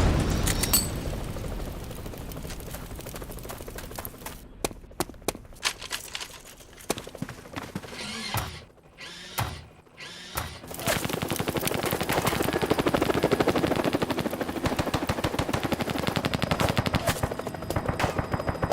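Film sound-effects gunfire: a run of rapid shots that thins to a few single shots about halfway through, then dense automatic fire again for the rest.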